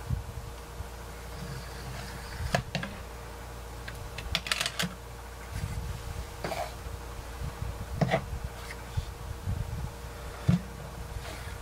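Scattered light taps and clicks of a plastic comb being dragged through wet acrylic paint across a canvas, with a denser run of clicks about four and a half seconds in.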